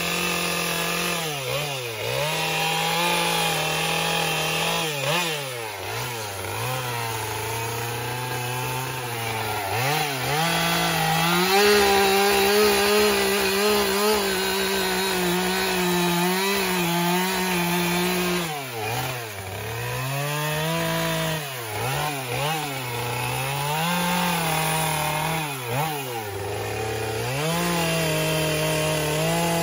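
Husqvarna gas chainsaw carving wood, its engine revving up and dropping back again and again as the chain cuts in and backs off, with a longer stretch held at high revs in the middle.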